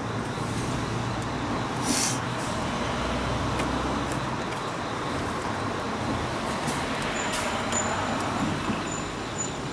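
Steady hiss of road traffic, with a brief sharp noise about two seconds in.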